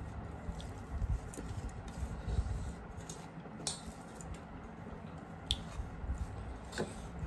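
Hands squishing and mixing rice with curry on steel plates, with mouth chewing sounds and a few sharp clicks.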